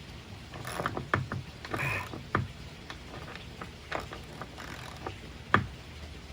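Hand ratchet wrench driving a half-inch lag screw into a 4x4 timber: irregular clicks of the ratchet and knocks of each stroke, with short scraping passages, the loudest click about five and a half seconds in.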